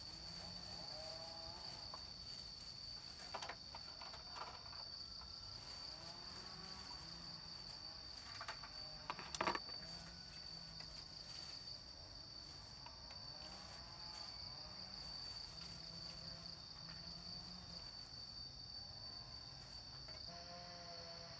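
Insects trill steadily in one high-pitched, pulsing tone. A couple of light knocks sound over it, the sharpest about nine seconds in.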